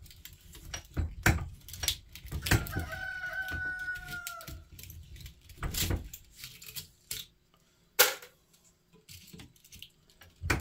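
Small screwdriver prying cut copper winding pieces out of a dryer stator: scattered metal clicks, taps and clinks. About two and a half seconds in, a drawn-out tone with a higher one above it sounds for about two seconds, dipping slightly at the end.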